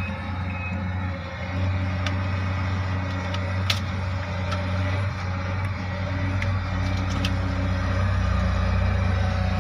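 Heavy vehicle's engine running with a steady low drone, a reversing alarm beeping briefly at the start. A few sharp clicks, the loudest a little under four seconds in.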